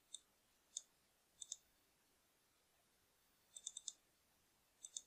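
Faint, sharp computer mouse clicks: single clicks near the start and under a second in, a double click about one and a half seconds in, a quick run of four clicks around three and a half seconds in, and another double click near the end.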